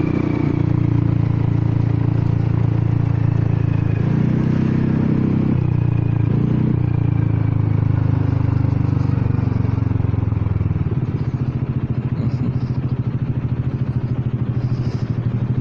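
Honda Forza 300 scooter's single-cylinder engine running quietly under light throttle, with a couple of small rises in revs, then dropping to a pulsing idle about eleven seconds in as the scooter stops. The rider is holding the revs down because the exhaust is choked.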